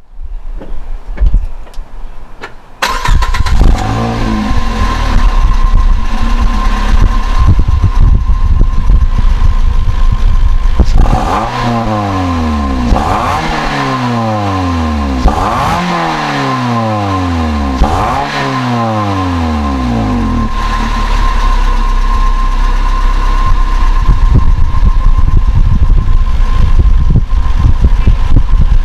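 Toyota car engine, heard from its exhaust pipe, cranking on the starter for about three seconds before catching and settling into an idle. About eleven seconds in it is revved four times in quick succession, the pitch falling back after each rev, then it returns to a steady idle.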